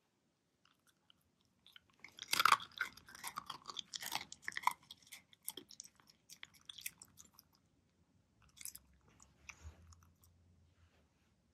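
A Shiba Inu chewing and crunching on something hard, in a quick irregular run of crunches, loudest in the first few seconds after it starts and then softer and sparser.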